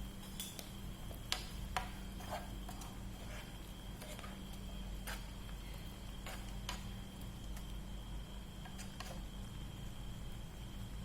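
Scattered clinks and knocks of kitchen utensils against dishes or pans, several in quick succession in the first two seconds and then sparser, over a steady low hum.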